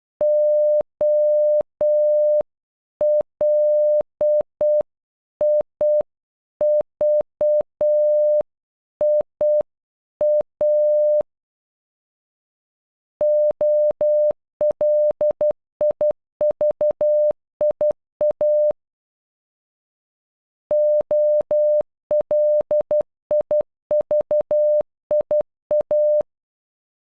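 Morse code for "Olivia" (--- .-.. .. ...- .. .-) beeped out as a single steady mid-pitched tone in short and long beeps. It plays slowly at half speed for the first eleven seconds or so, then, after a short pause, twice at normal speed with a pause between.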